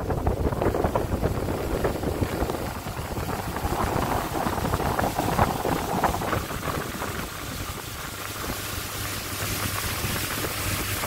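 Speedboat under way: a steady low engine drone under the rush of water past the hull and wind noise. The rushing eases about six or seven seconds in.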